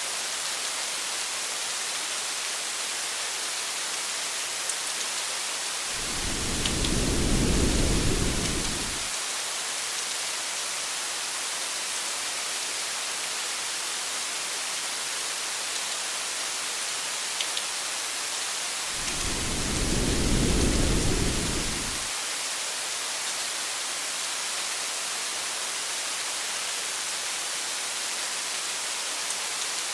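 Steady rain hiss, with two low rolls of thunder about thirteen seconds apart, each lasting about three seconds.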